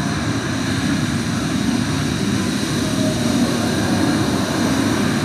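Large ocean waves crashing on rocks and rushing up a sandy beach: a loud, steady surge of surf noise.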